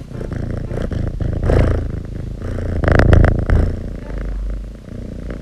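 A domestic cat purring close to the microphone, with louder swells about one and a half and three seconds in.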